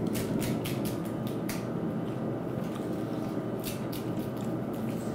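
Close-up chewing of a mouthful of rice with beef, salmon roe and sea urchin: wet mouth clicks and smacks, a cluster in the first second and a half and another pair near four seconds.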